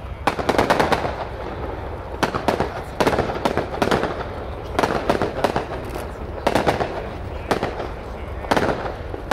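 Fireworks display: aerial shells bursting in sharp bangs and crackling volleys, coming in clusters about every second.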